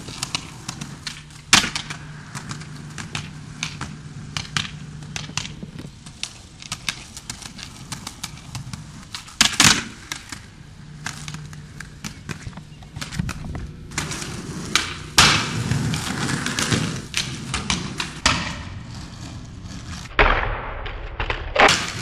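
Skateboard wheels rolling on concrete, broken by sharp clacks and slaps of the board being popped and landing. Several loud board slaps are scattered through, with smaller clicks between them.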